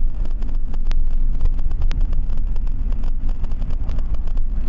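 A car driving, heard from inside the cabin: a steady low rumble of engine and road noise, with a couple of faint sharp ticks.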